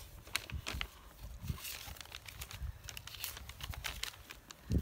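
Sheets of paper rustling and crinkling as they are handled and leafed through, with irregular short crackles.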